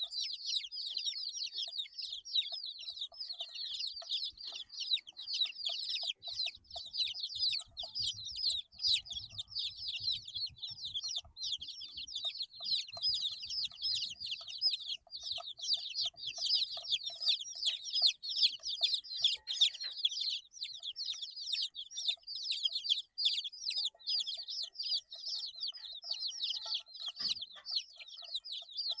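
A brood of 8-day-old baby chicks peeping continuously, many short high chirps overlapping without pause.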